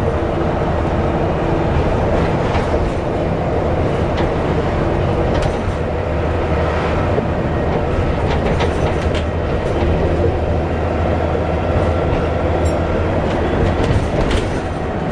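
Volvo B7TL double-decker bus under way, heard on board: a steady engine and driveline drone, with light rattles and clicks from the bodywork.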